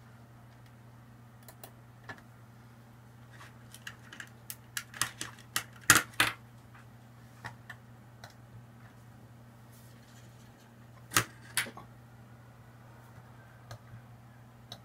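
Sharp clicks and small clattering knocks: a quick run of them around the middle, then two clicks a moment apart about eleven seconds in, such as a computer mouse button clicking an alert's OK. Under them runs a steady low hum.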